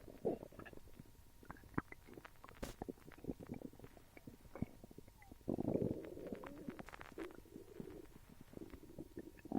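Human stomach gurgling: a run of small crackling pops and squelches, with a louder rolling gurgle lasting about a second about halfway through that fades into softer gurgling.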